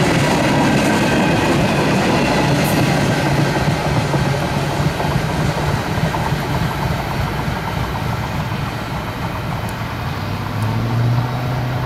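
Wheels of empty freight cars rolling and rattling over the track as the tail of an accelerating CSX ballast train passes and pulls away, the last car an eight-axle depressed-center flat car. The sound slowly fades, and a low hum swells briefly near the end.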